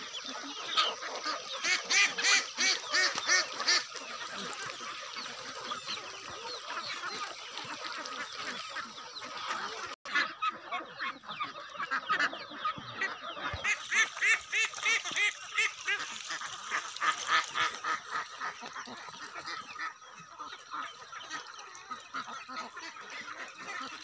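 A mixed flock of domestic ducks and chickens calling, with several runs of loud repeated calls at about three a second.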